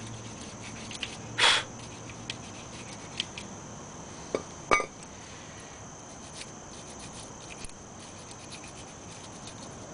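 Hand wire brush scrubbing a metal brake-pad retaining clip clean, a run of light irregular scratches with a louder scrape about one and a half seconds in and two sharp metallic clicks near the middle.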